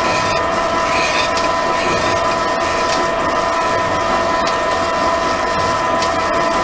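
Pillar drill running with a steady whine while its fly cutter bores out a wooden neck bearing, with scattered ticks as the cutter bites into the wood. It is a first trial cut to open the bore toward 62 mm for a phosphor-bronze bush.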